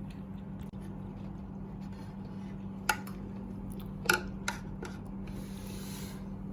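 A spoon clinking sharply against a dinner plate twice, about a second apart, over a steady low hum.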